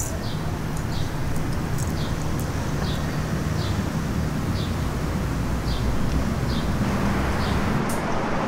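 Steady city traffic rumble with a regular series of sharp clicks, about one a second: high-heeled footsteps on the pavement. The traffic noise swells near the end as a vehicle passes.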